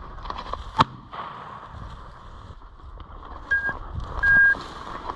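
A single sharp shotgun shot about a second in, fired at a flushing pheasant, followed near the end by two electronic beeps, a short one and then a longer one, over the rustle of dry grass.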